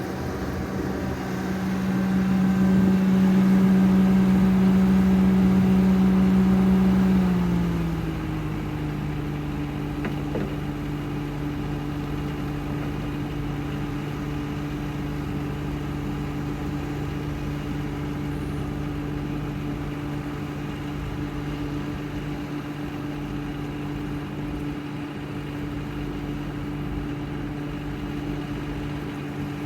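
Skid steer engine running at a high throttle setting, then throttled down about seven seconds in to a lower, steady speed for the rest of the time.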